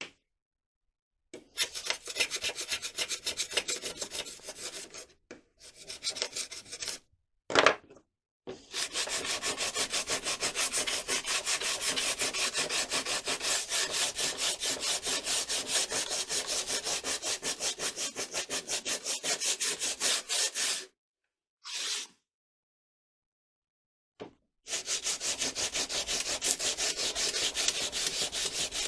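Hand sanding with sandpaper: quick, rhythmic back-and-forth rasping strokes in several long runs, separated by short pauses. A single sharp knock sounds near the middle of the first half.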